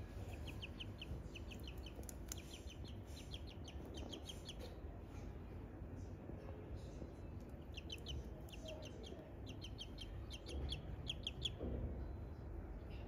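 Ducklings peeping in quick runs of short, high calls, with a lull around the middle and a busier run near the end.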